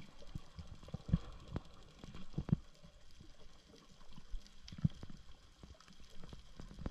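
Muffled underwater sound heard through a camera's waterproof housing during a freedive: a low water rumble with scattered dull knocks and clicks.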